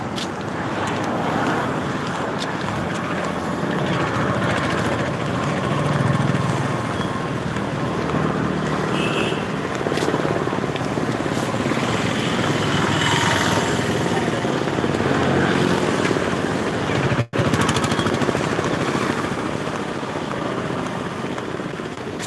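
Busy city street noise, mostly vehicle traffic, steady throughout, with the sound cutting out for an instant about seventeen seconds in.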